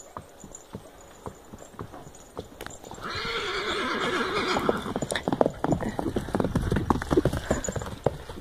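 Horse whinnying for about two seconds, starting about three seconds in, over the clip-clop of hooves on a dirt trail. The hoofbeats are sparse at first and grow louder and faster after the whinny.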